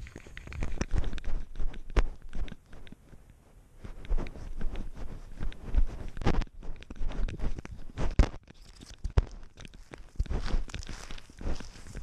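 A cat's footsteps crunching on gravel and dry grass, picked up by a GoPro worn on its body, with irregular knocks and rubbing as its fur brushes the camera. The steps ease off briefly about three seconds in.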